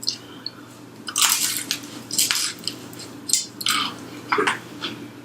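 A person biting into and chewing a fried chicken wing, with about half a dozen short, irregular crunches and wet chews.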